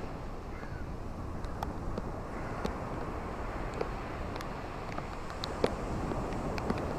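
Ocean waves washing on a shore: a steady low rush of surf, swelling slightly in the second half, with scattered faint ticks.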